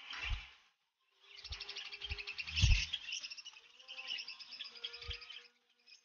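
Budgerigars chattering in a fast, continuous warble of chirps that starts about a second in and fades out near the end. A few dull knocks are mixed in, one at the very start and the loudest about halfway through.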